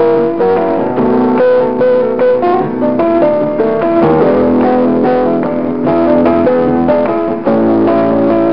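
Instrumental background music with a melody of quick, short notes over sustained chords.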